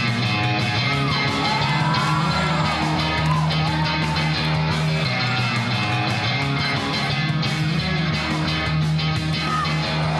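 Rock music with guitar and singing.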